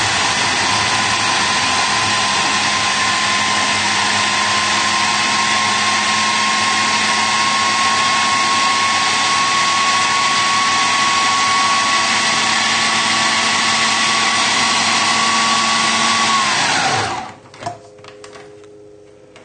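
Food processor motor running steadily, blending flour, sugar and butter into a fine crumb, its whine rising slightly in pitch. Near the end it is switched off and spins down, its pitch falling away to a faint hum.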